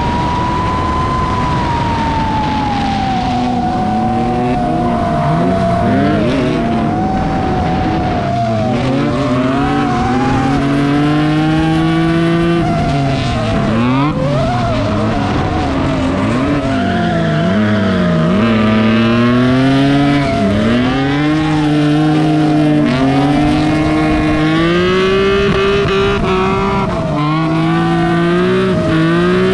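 S54 straight-six in a drifting BMW E46 330 ZHP, revving up and down again and again, with tyres skidding and squealing.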